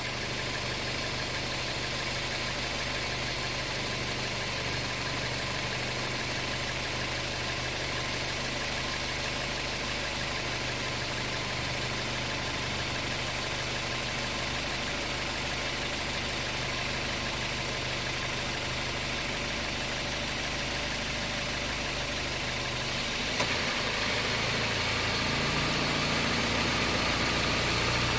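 Toyota Corolla Altis engine idling steadily. About 23 seconds in there is a short click, and the note changes: the low tones shift, a new tone comes in, and the sound gets a little louder. This is the abnormal noise (異音) the owner is pointing out.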